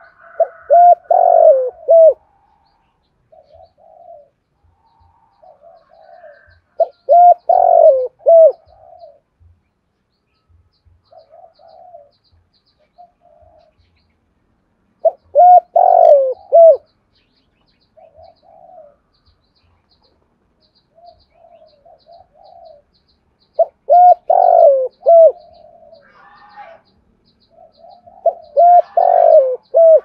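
Spotted dove cooing: five loud phrases of a few gliding coo notes, one roughly every seven or eight seconds, with softer coos between them. This is the dove's advertising call, used here from a caged decoy bird to lure wild doves.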